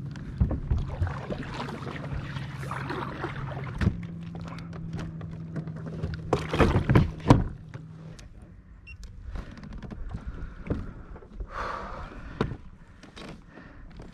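Paddling a plastic sit-on-top kayak: the paddle blades dip and splash in calm water, with sharp knocks now and then, loudest a little past the middle. A steady low hum runs under the first half and stops about eight seconds in.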